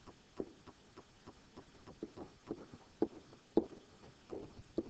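Faint, irregular light taps and short scratches of a stylus writing handwritten text on a digital writing surface.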